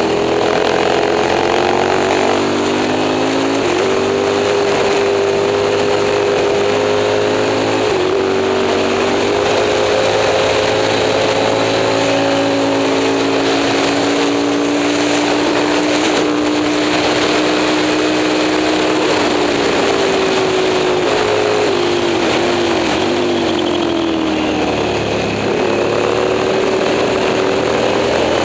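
Moto Morini 350 V-twin racing motorcycle engine running hard under load. Its pitch climbs in steps, with short dips at gear changes. Past the middle it falls in a run of steps, as on downshifts, and picks up again near the end.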